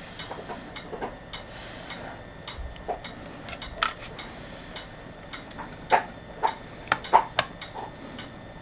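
Scattered light clicks and taps of fingers handling the control unit's rotary switch and its freshly soldered wires, wiggling them to check that the joints hold. The clicks are spread irregularly, with a few close together near the end.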